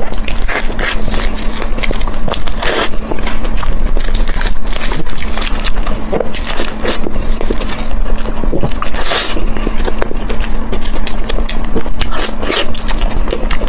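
Close-miked eating sounds of chewy squid being bitten and chewed: wet chewing, lip smacks and dense irregular sticky clicks, over a steady low hum.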